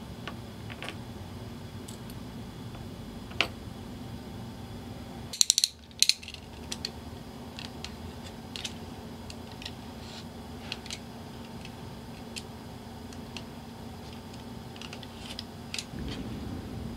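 Small metal wallet-chain hardware (a swivel snap hook and ring) clicking and clinking as it is handled, with a cluster of sharp clicks about five to six seconds in, over a steady low hum.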